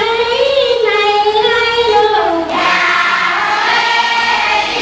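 Children singing a song together, a high melody with long held notes that grows fuller about halfway through.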